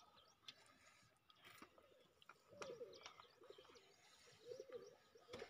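Faint bird cooing: four short wavering calls about a second apart in the second half, with a few soft clicks and faint high chirps.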